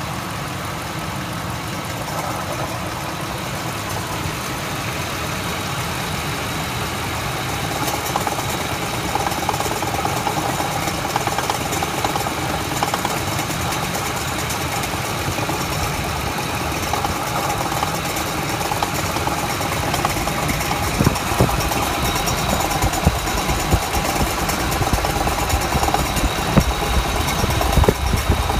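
Ford F-150 Triton engine idling with a rattle. Sharp clicks and knocks stand out above the steady running sound, growing louder and more frequent from about twenty seconds in.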